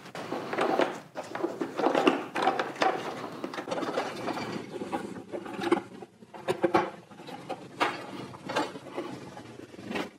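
Hands working on the back of a plastic car bumper cover: irregular knocks, clicks and rustling of plastic and wiring as parts are fitted by hand.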